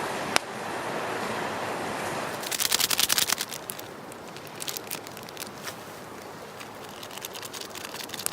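Steady rush of river water with a single sharp click, then, about two and a half seconds in, a second-long burst of rapid crinkling clicks, followed by quieter scattered small crackles.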